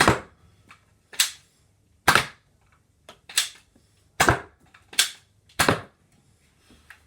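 Nerf foam-dart blaster being primed and fired in a test, giving seven sharp plastic snaps spaced roughly a second apart.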